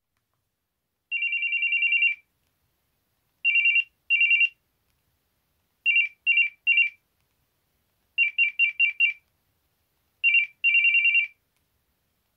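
Built-in beep ringtones of a SANYO C411ST flip phone: a high, warbling electronic trill played in five different ring patterns. The patterns are one long ring, then two short rings, then three, then five quick ones, and finally a short and a long ring, each group a second or two apart.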